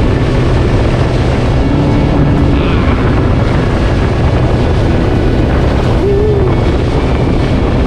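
Sea-Doo personal watercraft running steadily at speed, its engine drone under loud wind noise on the microphone and rushing water spray.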